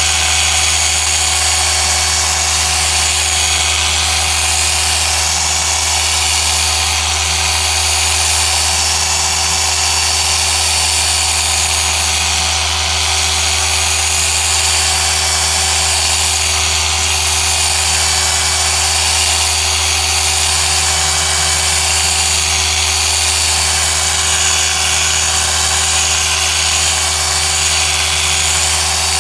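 Rupes BigFoot polisher running steadily with a small foam pad pressed against a plastic tail-light lens, working medium cutting compound: an unbroken motor whine over a low hum, with no pauses or changes in speed.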